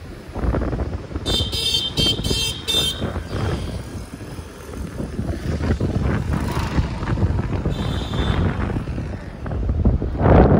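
Wind buffeting the microphone over a motorcycle's engine while riding along a road. About a second and a half in comes a short run of rapid high-pitched beeps.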